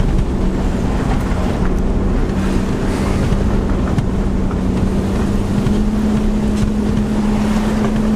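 A car driving along a road: a steady engine hum over low tyre and road rumble, the engine note rising slightly about two-thirds of the way through.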